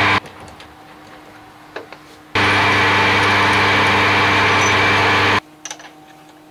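Metal lathe running with a steady hum while a drill in the tailstock chuck bores into the end of the spinning shaft. The hum cuts off suddenly twice. In the quiet stretches there are a few small clicks and knocks from the drill chuck being handled.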